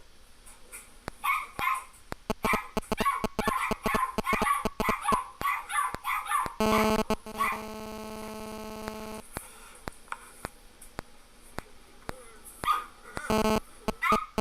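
Puppies yipping and barking in quick succession, with sharp clicks among them, then a steady pitched tone for about two and a half seconds, and a few more yips near the end.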